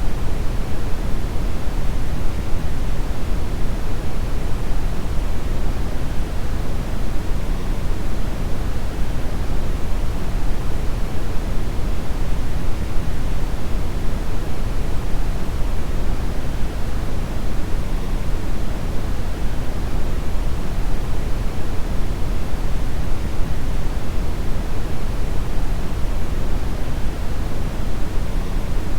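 Brown noise: a steady, even rumbling hiss, strongest in the deep lows and fading toward the highs, with no changes or events.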